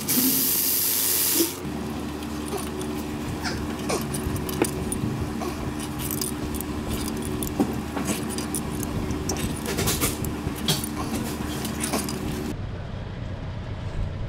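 A loud spray hiss for about the first second and a half, then scattered light metallic clinks and clicks of hand tools and engine parts over a steady low hum. The sound changes abruptly near the end.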